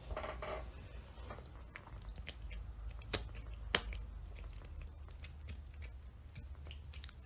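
A cat biting and chewing a dangling cooked noodle: scattered soft clicks and smacks of its mouth, with two louder ones about three and four seconds in.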